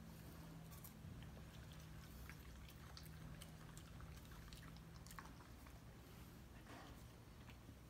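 Faint, wet chewing and licking as a Samoyed puppy bites into a slice of watermelon: scattered small clicks and squelches over a low steady hum that fades about five seconds in.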